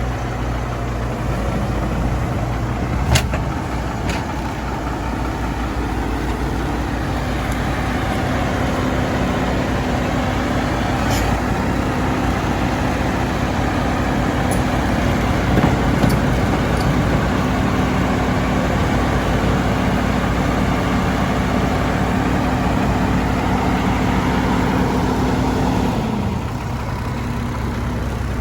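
Heavy diesel engine running steadily, rising in pitch as it works harder for most of the stretch and dropping back to a lower idle near the end, with a few sharp metallic clicks along the way.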